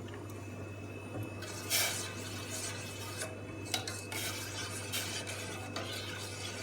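Spoon stirring loose herbs and spices in a pan of water on the boil, with irregular scraping strokes against the pan starting about a second and a half in.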